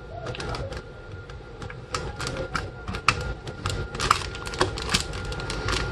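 Rapid small plastic and metal clicks and taps from hands handling PC components while DDR4 memory sticks are seated in the motherboard's slots.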